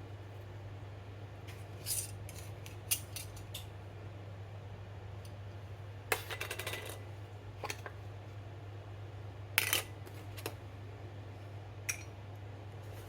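Scattered clinks and clatters of kitchen utensils and dishes, with a quick rattling run about six seconds in, over a steady low hum.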